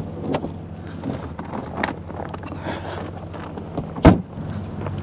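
Footsteps on wet, slushy asphalt over the steady low hum of an idling engine, with one heavy thump about four seconds in.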